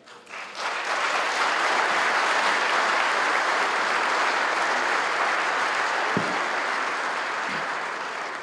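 Audience clapping. It starts about half a second in, builds to full within a second, holds steady and begins to fade near the end.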